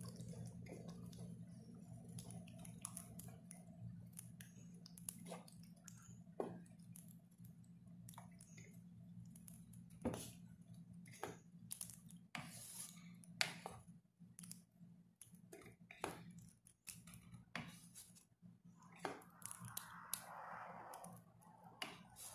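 Wooden spatula stirring a thick ground-beef and tomato sauce in a nonstick pan: soft, irregular squelches, scrapes and taps against the pan, over a steady low hum.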